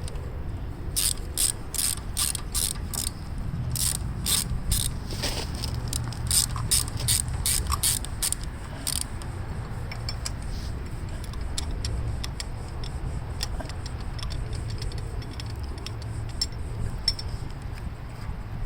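Socket ratchet clicking in short back-and-forth strokes as it loosens the bottom starter mounting bolt, a quick run of sharp clicks for about the first nine seconds, then fainter, sparser clicks, over a steady low rumble.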